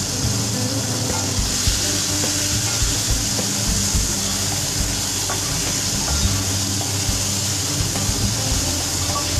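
Cut green mango pieces sizzling in mustard oil in a pan, with scattered small pops and crackles. The sizzle grows louder and brighter about a second and a half in.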